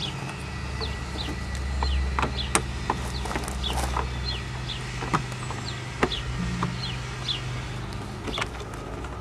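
Sharp metallic clicks and knocks from hand tools and engine-bay parts being refitted and tightened, over a low steady hum. Quick high chirps of small birds are scattered throughout.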